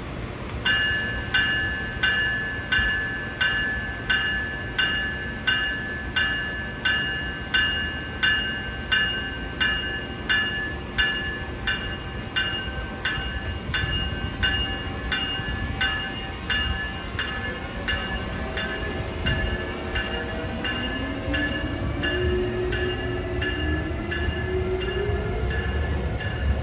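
Amtrak ACS-64 electric locomotive's bell ringing at an even beat, about three strikes every two seconds, as the train departs the station. From about two-thirds of the way in, a rising electric whine from the traction drive builds as the train accelerates.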